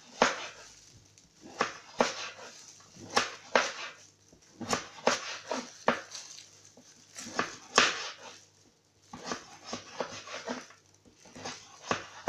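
Kitchen knife slicing raw peeled pumpkin into thin strips and knocking on the cutting board: about a dozen sharp cuts at an uneven pace, with soft scraping between them.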